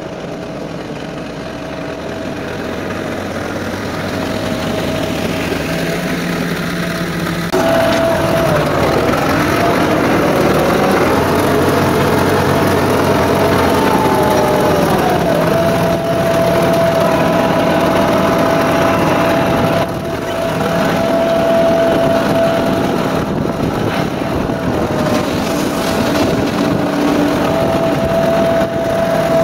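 Ford 5610S diesel tractor running steadily with a high whine as it drags a box blade across gravel. At first it grows louder as it approaches, then it is heard close up from about a quarter of the way in. Its pitch sags briefly about halfway through, under load, and then recovers.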